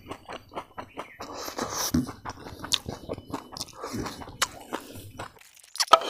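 A person chewing a mouthful of food close to the microphone, a run of small crunchy clicks several times a second, with a brief pause near the end.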